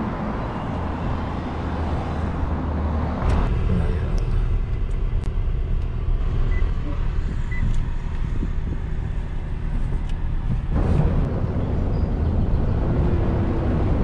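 Wind rumble on the microphone at first, then the quieter hum of a car idling with a few small clicks. About eleven seconds in the car pulls away, and engine and road noise swell.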